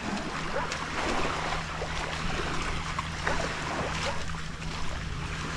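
Beach ambience of wind and gentle water at the shore over a steady low hum, with faint scattered crunches.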